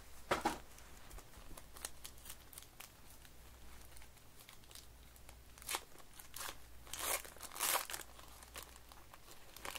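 Foil wrapper of a trading-card pack crinkling and tearing as it is opened by hand, with small clicks of handling; the loudest rustles come in a few short bursts in the second half.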